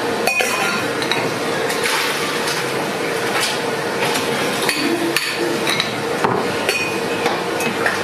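A metal ladle knocking and clinking against the rim of a large soup pot and porcelain bowls as broth is ladled out, in irregular sharp strikes over a steady rushing background.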